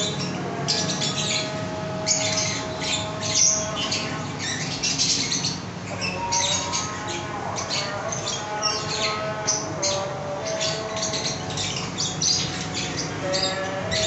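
A roomful of caged lovebirds chattering, with many short, shrill squawks overlapping one another without a break.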